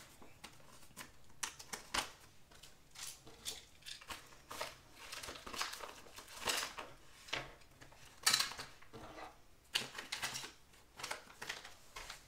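Small plastic diamond-painting tools being packed back into their bag: irregular light clicks and knocks with plastic rustling.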